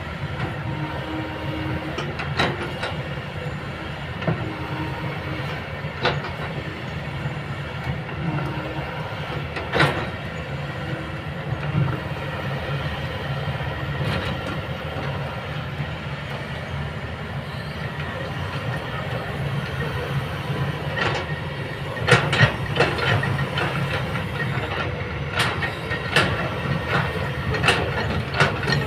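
Kobelco hydraulic excavator at work: a steady diesel engine drone with a tone that recurs every few seconds, and sharp metallic clanks and squeals, several in quick succession near the end.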